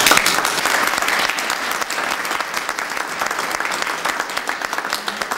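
Audience applauding, many hands clapping; loudest right at the start, then settling into steady clapping.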